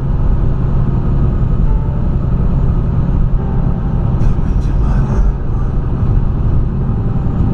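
Vehicle on the move: a steady, loud low rumble of engine and road noise.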